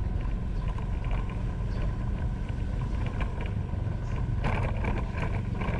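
Riding a motorbike: a steady low rumble of the engine and of wind buffeting the microphone.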